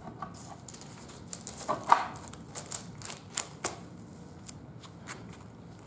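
An irregular run of light wooden knocks and clicks for about two seconds, loudest about two seconds in, from the glued wooden ramp pieces being handled and set together.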